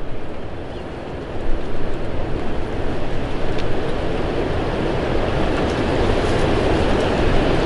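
Wind buffeting the microphone, a steady low rumble that grows louder about a second and a half in, with a few faint clicks.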